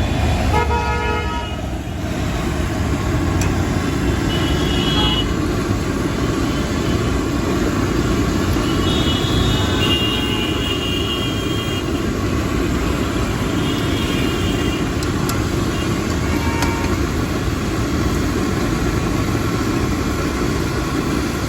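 Street traffic running steadily, with vehicle horns honking several times: one long honk about a second in, then shorter, higher toots later on.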